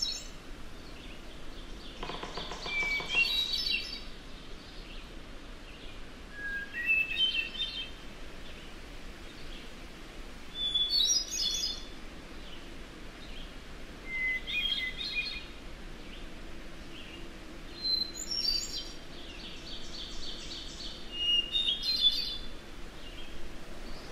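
A songbird singing in a wilderness field recording: a short rising phrase every three to four seconds, each starting on a different pitch, over a faint steady background hiss.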